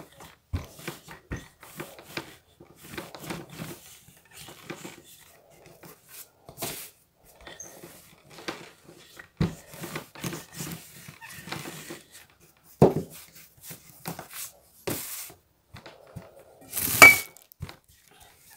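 Wooden rolling pin rolling out puff pastry dough on a floured stone countertop: irregular soft rolling strokes and light knocks, with a louder knock about 13 seconds in and the loudest, sharp clatter near the end.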